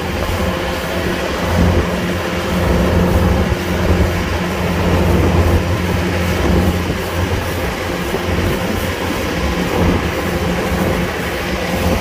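Kubota DC105X combine harvester running steadily as it works: a low, continuous engine drone with machinery noise over it.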